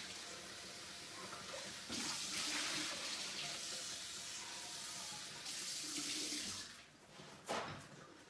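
Kitchen tap running water into a sink, the flow getting stronger about two seconds in and again after five seconds, then shut off near the end, followed by a single knock.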